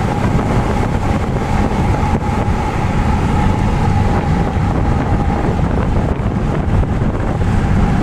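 Wind buffeting the phone's microphone inside a car moving at freeway speed, over the steady rumble of road and engine noise. A thin, steady tone runs under it throughout.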